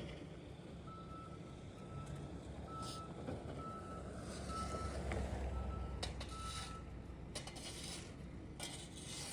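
Backup alarm of a construction vehicle reversing: a steady single-tone beep about seven times, roughly once a second, over a diesel engine's low rumble that swells midway. The beeping stops about two-thirds through, followed by a few clanks.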